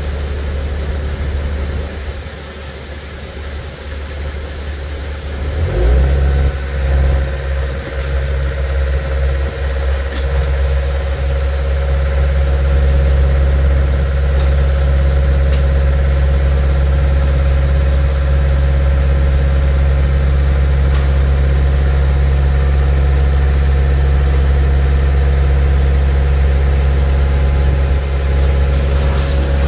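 Skid steer loader's diesel engine running close by, picking up to a louder, higher steady speed about six seconds in and holding there. A few clanks come near the end.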